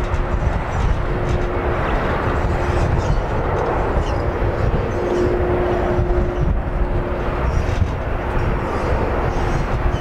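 Boeing 767-300F freighter's two jet engines at takeoff thrust during the takeoff roll, a steady loud roar with a faint steady hum in it, mixed with strong wind buffeting the microphone.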